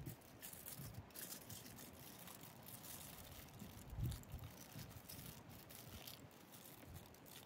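Aluminium foil crinkling faintly as hands press and fold it down over a pan, with a soft thump about four seconds in.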